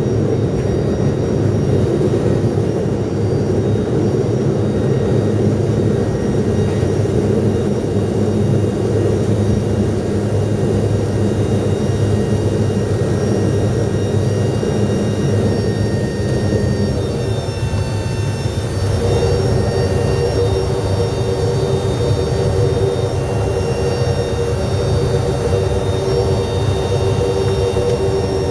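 Steady engine drone heard from inside a vehicle, a loud continuous hum with several held tones that shift in pitch about 17 to 19 seconds in.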